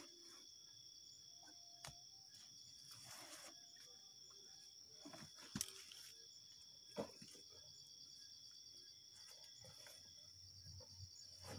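Faint, steady high-pitched chorus of crickets or similar insects trilling, pulsing near the end. A few soft knocks and rustles break in about 2, 5 and 7 seconds in.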